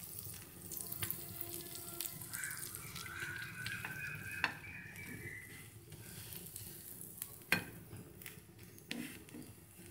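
Bread slices frying in melted butter on a hot dosa griddle, a faint steady sizzle, with a couple of sharp clicks from the bread being handled on the pan, about four and a half and seven and a half seconds in.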